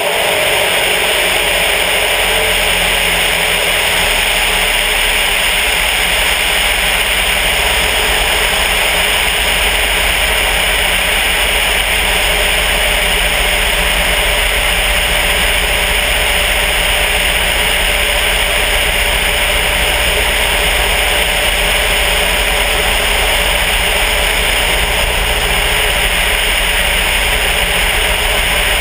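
Steady in-flight noise of a Sonex light airplane: loud rushing airflow with the drone of its Volkswagen-based engine underneath, unchanging throughout.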